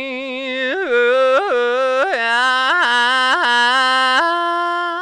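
A person's singing voice held on one vowel. It flicks briefly up to a higher pitch five times, about every half second, and steps up to a higher held note with a slight wobble around four seconds in, in a yodel-like break between registers.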